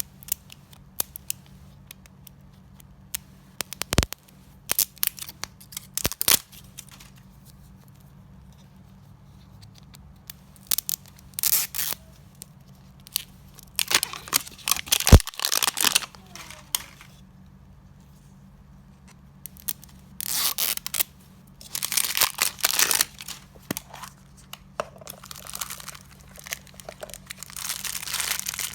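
L.O.L. Surprise Lils toy packaging being torn open and crinkled by hand, in scattered bursts of tearing and crackling separated by short pauses. Sharp clicks are mixed in, the loudest about halfway through.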